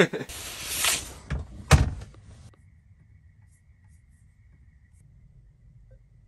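Rustling with two knocks in the first two seconds, the second a sharp, loud thud; then quiet room tone with a faint steady high whine.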